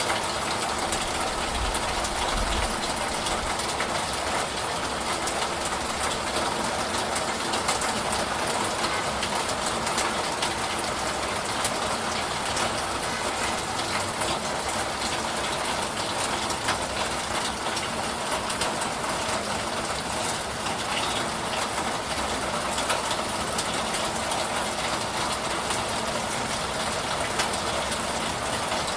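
Steady rainfall: an even hiss flecked with the patter of many individual drops.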